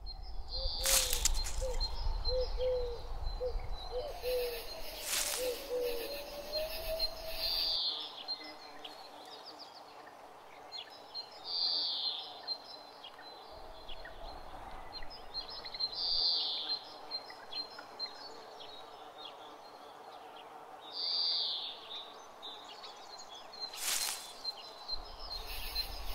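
Outdoor nature ambience: birds calling and chirping over a light breeze, with one call coming back every four to five seconds. A few brief sharp noises and a low wind rumble come and go.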